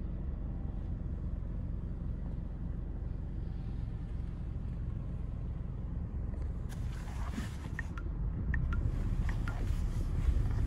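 Steady low rumble of a car, heard from inside the cabin. About seven seconds in, a hiss and a few short high chirps join it.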